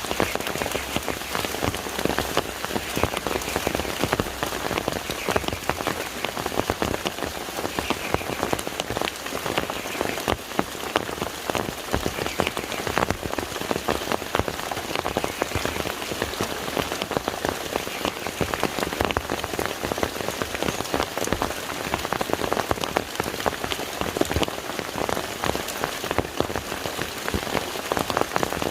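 Steady rain falling on a lake, a dense, even hiss made up of countless individual drop hits.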